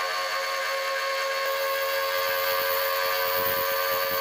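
Milling machine running a Woodruff key cutter steadily through a shaft, cutting a keyseat, a sound with several steady tones over a high hiss. The shaft sticks out far enough from the vise to make the cut chatter a little.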